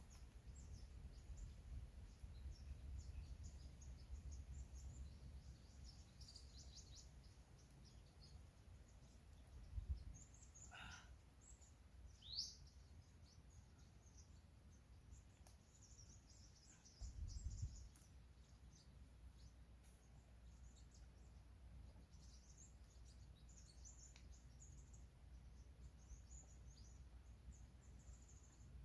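Faint outdoor ambience of scattered small-bird chirps and calls, high-pitched and brief, with one clearer rising chirp partway through, over a soft low rumble; a dull low thump a little past halfway.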